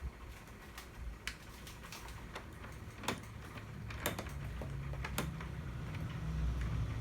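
Scattered sharp clicks and ticks from a 1/12-scale radio-controlled 6x6 model truck, with the low hum of its electric drive growing from about four seconds in as it starts to move.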